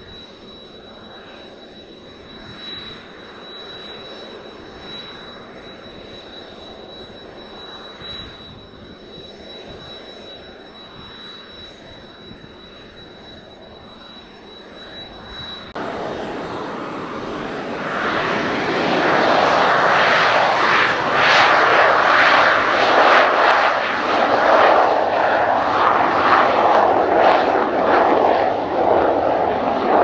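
Kawasaki T-4 trainer's twin turbofan engines: a steady whine with a thin high whistle at low power, then, after a cut about halfway, much louder and rougher as the jet runs at takeoff power and rolls down the runway.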